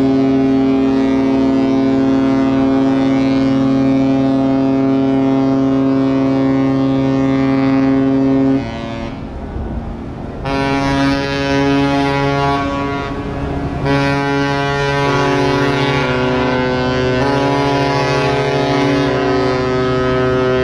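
Ship's horn of the MSC Orchestra cruise ship sounding a loud, deep blast of about nine seconds, then after a short pause a second sequence of held blasts that shift in pitch a few times, a departure signal as the ship leaves port.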